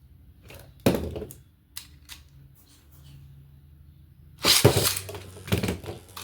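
Beyblade X tops and launchers: a sharp click about a second in and a few light ticks, then from about four and a half seconds in a loud clatter of hard plastic knocks and scraping as the beys are launched and strike each other in the stadium.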